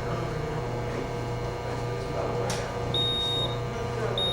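Steady electrical hum, with a single high-pitched electronic beep about three seconds in that lasts about half a second.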